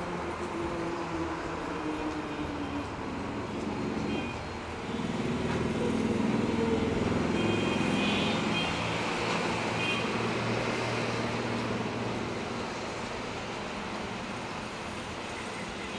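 Engine noise of a passing motor vehicle, growing louder for several seconds midway and then fading back to a steady background rumble.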